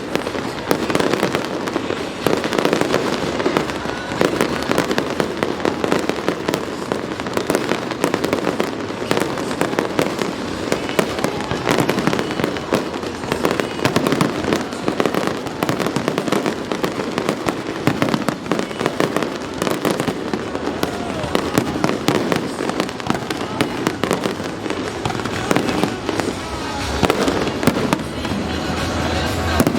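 Fireworks display: a dense, unbroken run of bangs and crackles from aerial shells bursting, with music and voices underneath.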